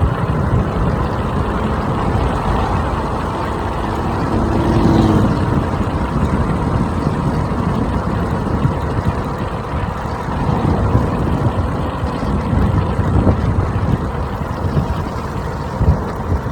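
Wind buffeting the microphone and tyre rumble while riding an electric scooter at speed, a loud, steady, low rumble.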